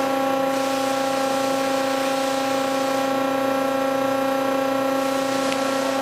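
Lumber stacker's fault alarm sounding one steady, unbroken tone: the stick-sensing system has flagged a missing stick on the stick distribution chains.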